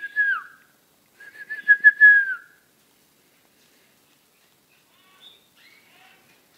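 A person whistling: a short note, then a longer wavering note, each dropping in pitch at the end. Faint cheeping of hand-fed canary chicks begging near the end.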